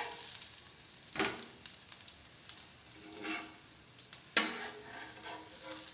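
Bread cutlets shallow-frying in oil in a hot pan, with a steady sizzle. Sharp knocks come about a second in and, louder, just past four seconds as the cutlets are turned over.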